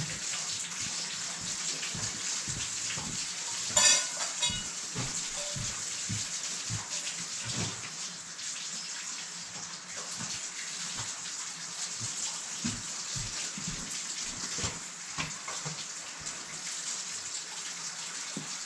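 Steady running water with a hissy splash, scattered soft knocks, and a short ringing clink about four seconds in.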